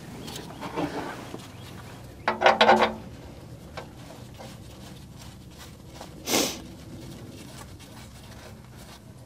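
Handling noises of the oil drain plug being threaded back into the engine's oil pan by hand: scattered clinks and scrapes, with a short rattle of several clinks about two and a half seconds in as the loudest, and a brief rustling rush about six seconds in.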